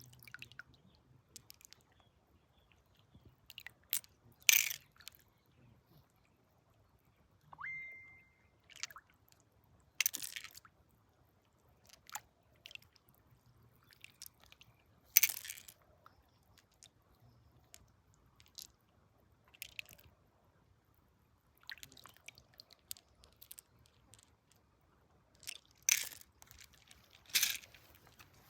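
Sharp crunches of rock and gravel, coming singly every few seconds, as stones are dug or scraped while prospecting for gold in a riverbed. A short whistle-like tone sounds once, about eight seconds in.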